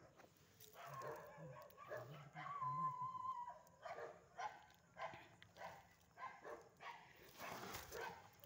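Dogs barking faintly in a string of short calls, with a drawn-out whine about three seconds in.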